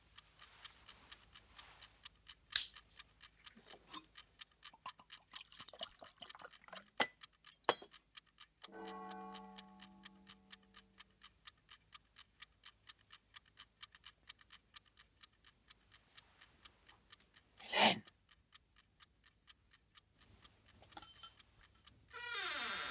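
A mechanical wind-up alarm clock ticking steadily and quickly. A few sharper clicks stand out over the ticking. About nine seconds in, a low held tone lasts some two seconds; near eighteen seconds a short louder rustle is heard; and near the end a loud sound with falling pitch begins.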